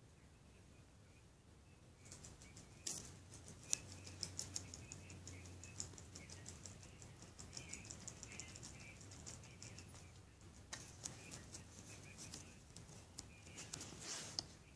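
Faint, rapid clicks and scratches close to the phone's microphone as a small puppy paws and nuzzles at it, starting about two seconds in, with a few faint high squeaks.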